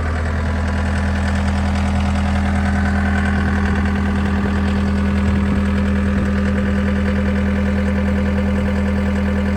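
John Deere 320E skid steer's 66 hp Tier 4 diesel engine running at a steady speed, with no change in pitch or level.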